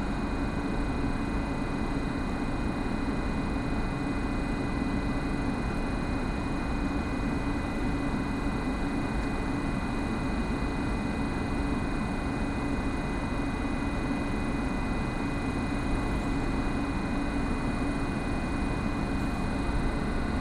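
ÖBB electric multiple unit standing at the platform with its onboard converters and ventilation running: a steady hum with several high, unchanging whining tones over an even background noise.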